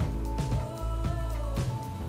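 Instrumental background music with a steady beat and sustained notes over a bass line.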